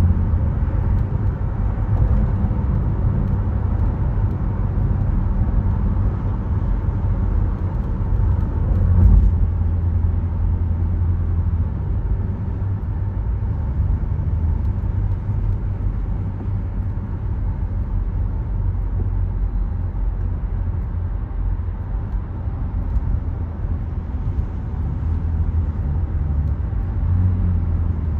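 Steady low rumble of a car driving at highway speed: tyre and road noise with engine drone. There is a brief louder thump about nine seconds in.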